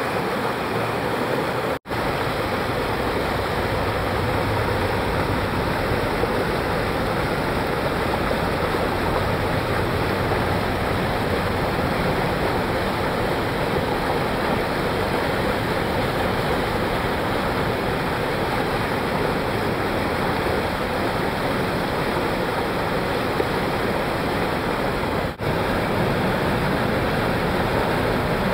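Steady rush of whitewater churning through a standing river wave, cutting out for an instant twice, about two seconds in and near the end.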